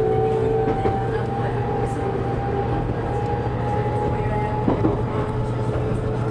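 Running noise of a JR Kyushu 813 series electric train heard from inside the front car: a steady rumble with a motor whine that fades out about three quarters of the way through, and a few clicks from the wheels on the track.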